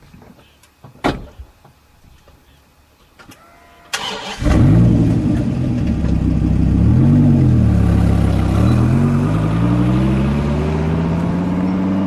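A Dodge Viper's V10 engine starts with a sudden loud catch about four seconds in, after a few faint knocks. It is blipped once, then runs with a long, steady rise in pitch as the car pulls away.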